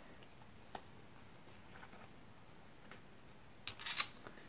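Faint clicks of a small metal jump ring and jewelry pliers as the ring is worked through a metal eyelet in a paper page, with a short cluster of louder clicks and handling noise near the end.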